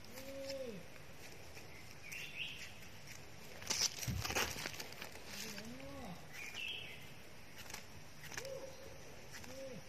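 Small knife scraping and knocking against soil and the base of a wild amanita mushroom, loudest in a cluster of scrapes about four seconds in. Birds call in the background: several short rising-and-falling calls and a couple of high chirps.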